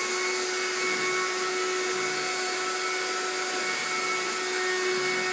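Vacuum cleaner running steadily at full speed: a steady motor whine over the rushing of air.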